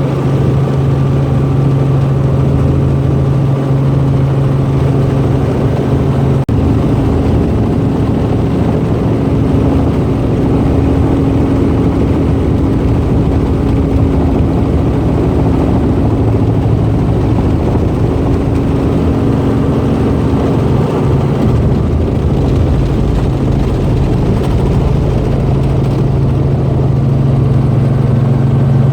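Steady engine and rotor drone of a helicopter in flight, heard from inside the cabin, with a brief break about six seconds in.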